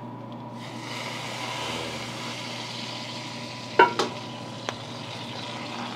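Steady sizzling hiss from the hot pan starting about half a second in, over a low hum. A metal ladle clanks twice against a steel wok a little before the two-thirds mark, followed by a lighter click.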